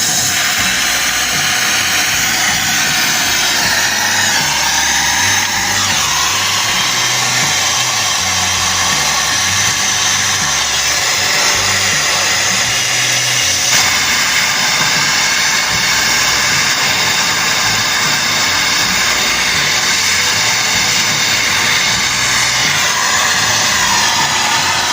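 Background ambient music with a slow, stepping bass line, over a steady loud hiss.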